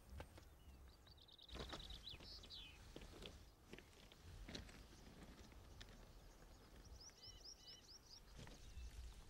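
Faint outdoor ambience with small birds chirping: a quick run of chirps between one and two and a half seconds in, and a rapid string of short calls around seven to eight seconds in. A few soft crunching footsteps on gravel come through under them.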